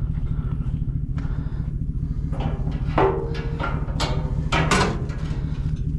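A vehicle engine running steadily with a deep, even rumble, with a few short knocks over it.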